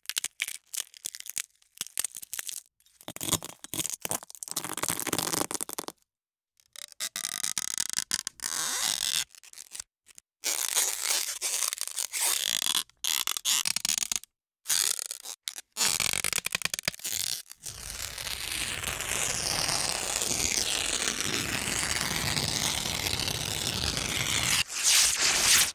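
Small props handled and rubbed right at a microphone, heard as a run of short noisy scraping sounds broken by brief silences. From about 18 seconds it becomes one continuous scraping that is loudest near the end.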